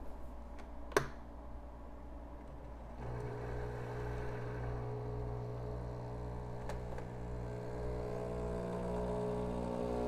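A sharp click about a second in, then the espresso machine's pump starts about three seconds in and runs with a steady hum, pushing water through the coffee puck as the shot is pulled.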